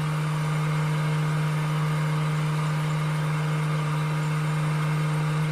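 Motor of a tree-trimming power tool running steadily at one constant pitch, with no change in speed or load.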